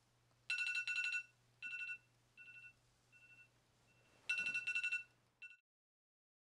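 iPhone alarm going off: a pulsed electronic beeping on two steady pitches. A loud burst is followed by fainter, fading repeats, then a second loud burst about four seconds in. It cuts off abruptly a little after five seconds in.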